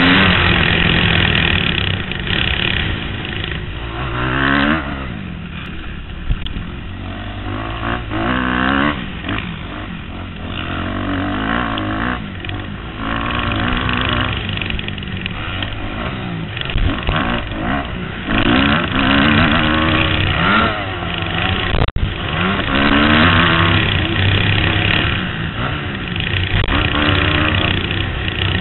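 Kawasaki KX250F's four-stroke single-cylinder motocross engine heard from the rider's helmet, revving up and dropping back again and again as the throttle opens and closes.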